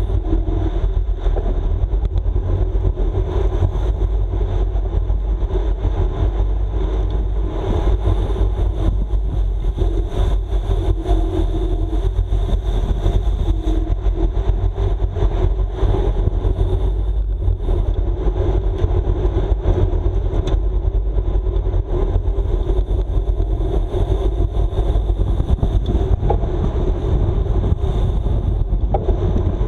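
Steady rush of wind over the microphone and low road rumble from a road bike racing at speed.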